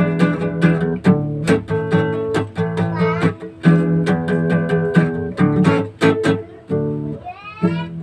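Acoustic guitar strummed in a steady rhythm, about two strokes a second, with the chords ringing between strokes. Near the end there is a brief rising squeak.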